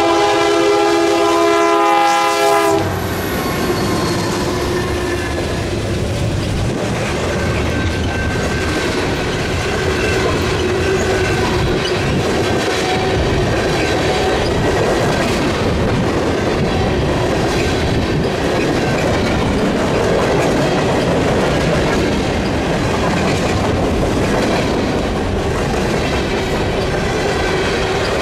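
Canadian National diesel freight locomotive sounding its horn, a steady chord, for about the first three seconds as it passes close by. After that come the steady rumble and clatter of a long string of tank cars rolling past on the rails.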